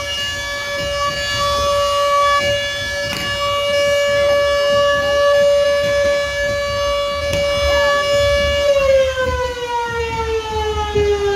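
A siren holding one steady tone for several seconds, then winding down smoothly in pitch over the last few seconds.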